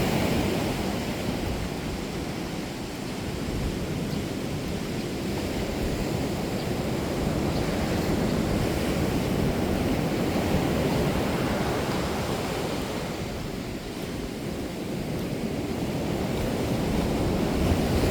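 Ocean surf washing in, with wind buffeting the microphone. The noise swells and eases, dipping briefly twice.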